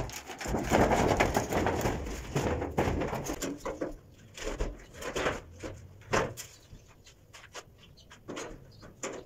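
Large empty galvanized steel grain drum rolled on its side across a concrete floor: a hollow rumble for the first few seconds, then quieter, with separate knocks as it is tipped and stood on end, the sharpest about six seconds in.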